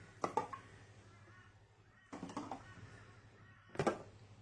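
Quiet handling of pantry items: a couple of light knocks near the start and a sharper clunk near the end, as tins and a basket are put back on the shelf.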